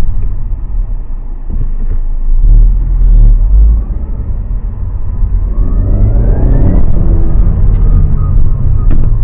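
2017 Honda Civic's 1.5 L turbocharged four-cylinder revved in neutral: a short surge a few seconds in, then a longer rev whose pitch climbs to a peak about seven seconds in and falls away as the revs drop. The owner takes the early drop for a fuel cut in neutral.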